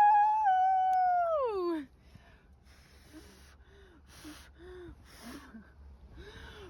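A dog howling: one long, high, wavering howl that slides down and stops about two seconds in, followed by a few faint short whimpering calls and breaths.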